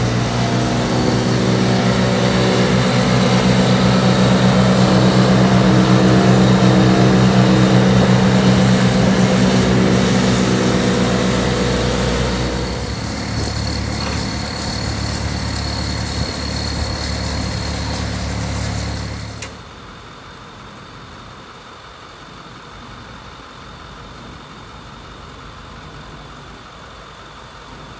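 Jetter rig's John Deere 4045 four-cylinder diesel engine running under load, driving the triplex plunger pump, with the hiss of a high-pressure water jet from the hose wand. Nearly halfway through it drops to a lower, quieter rumble, and about two-thirds of the way through the sound cuts off suddenly to a quieter steady background.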